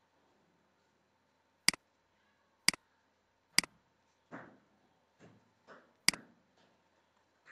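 Computer mouse clicking: four sharp clicks about a second apart, each a quick press-and-release double click, with softer ticks between them.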